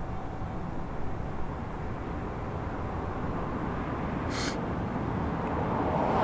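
Distant FPV racing quadcopter's motors buzzing over steady wind noise on the microphone, growing louder near the end.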